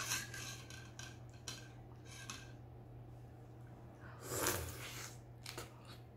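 A spoon clinking and scraping faintly against a ceramic bowl as a steamed potato is dipped in butter sauce. About four seconds in comes a louder wet bite and chewing as the potato is eaten.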